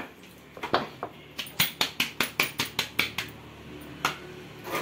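Rolled-out roti dough being slapped between the palms in a quick run of sharp pats, about five a second, shaking off dry flour before it goes onto the tawa. A last single pat comes near the end.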